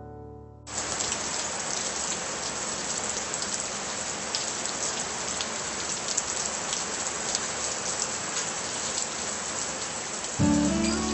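Steady rain falling: a dense, even hiss full of fine pattering drops that starts abruptly about a second in. Strummed acoustic guitar music comes back in near the end.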